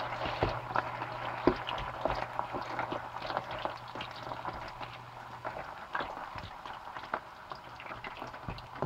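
Plantain slices deep frying in hot oil, with a steady sizzle and dense crackling pops. A low steady hum runs beneath it and stops about five and a half seconds in.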